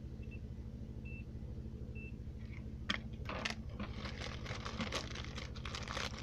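Three short high electronic beeps about a second apart, then a dense run of clicks, taps and scraping, like parts of a keyboard being handled and worked on. A steady electrical hum lies underneath.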